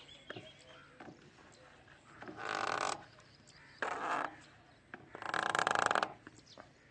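Plastic pipe being worked down a borehole, rasping against it in three short scraping bursts, the last the loudest.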